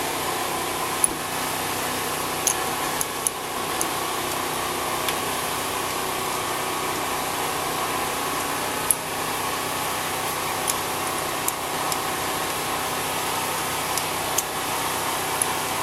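A steady mechanical hum of the engine-running kind, with a few brief sharp clicks scattered through it.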